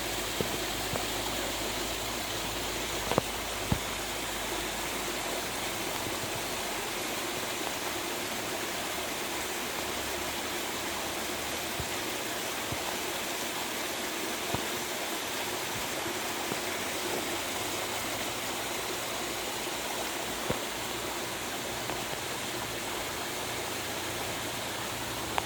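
Steady rush of falling and flowing water from a small rain-fed forest waterfall, with a few faint clicks about three and four seconds in.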